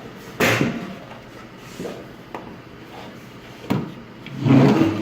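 Knocks of a portable hookah table being turned over and set down: one sharp knock about half a second in and a smaller click a few seconds later.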